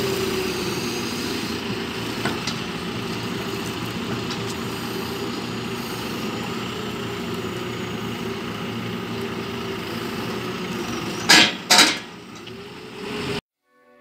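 JCB telehandler's diesel engine running steadily as it lifts round straw bales, with a faint click a couple of seconds in. Near the end come two loud, short bursts of noise, and then the sound cuts off.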